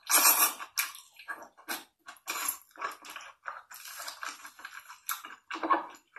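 Close-miked mukbang ASMR eating sounds: wet chewing and lip-smacking on a mouthful of rice mixed with mudfish soup, in irregular smacks several a second, loudest right at the start.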